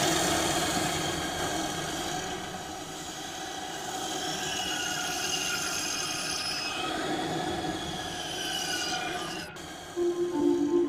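Horror sound effect: a dense metallic screeching drone with several high whines slowly falling in pitch. It cuts off abruptly about nine and a half seconds in, and soft ambient music with steady held tones begins near the end.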